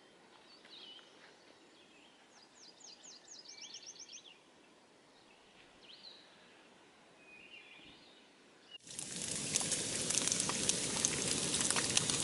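Faint woodland birds calling, including a quick run of about ten chirps, then about three-quarters of the way in a sudden switch to bacon sizzling and popping in a frying pan on a camp stove, much louder than the birds.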